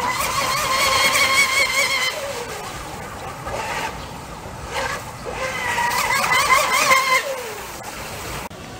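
Radio-controlled electric speedboat's motor whining at speed, in two spells of about two seconds each. Each spell ends with a falling pitch as the boat passes and eases off.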